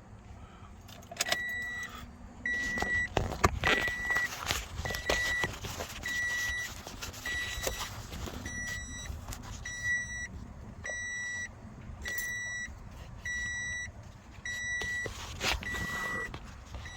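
A 2013 Toyota RAV4's in-cabin warning chime beeping steadily, about one high beep every second, while a key is turned in the ignition. There are clicks and a jangle of keys in the first few seconds.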